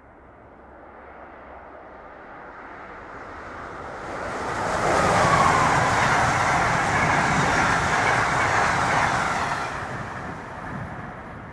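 Amtrak electric train of Amfleet coaches passing at speed: the wheel and rail noise builds over the first few seconds, is loud for about five seconds as the train goes by, then fades. A faint falling whine is heard as it passes.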